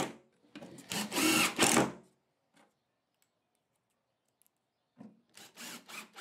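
Cordless impact driver driving a wood screw into plywood in one run of about a second and a half, starting about half a second in. A few light knocks follow near the end as the next screw is set, and the driver starts up again right at the end.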